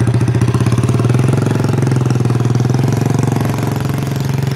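A home-built monowheel's small engine running steadily with a fast, even pulsing beat.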